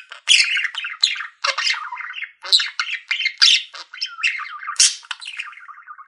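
Budgerigars (budgies) chirping: a fast, continuous run of short, high chirps and squawky chatter.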